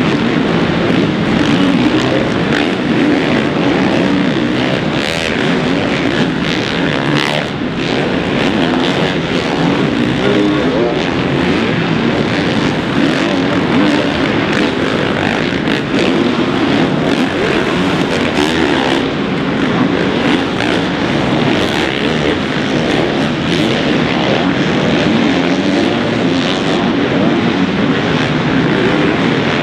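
Four-stroke supercross dirt bikes riding the track, their engines revving up and dropping off in pitch as the riders work the throttle through turns and jumps.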